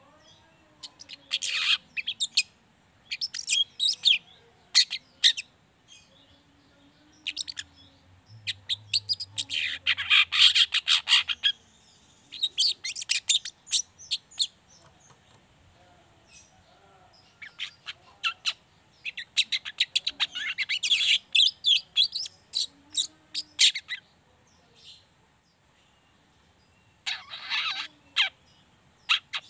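Juvenile long-tailed shrike (cendet trotol) singing its fast, scratchy 'ngriwik' chatter in bursts of one to four seconds with short pauses between them. The longest and loudest runs come about ten seconds in and again around twenty seconds.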